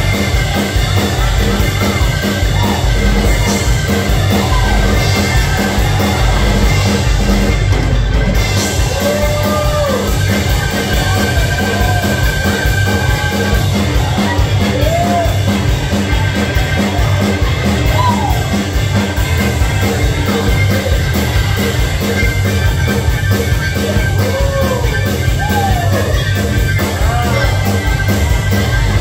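Live gospel band music with a fast, steady beat and held keyboard chords, with voices singing or calling out over it now and then.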